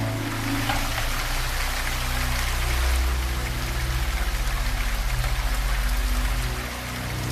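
Steady rain with low, sustained harmonic pad tones held underneath.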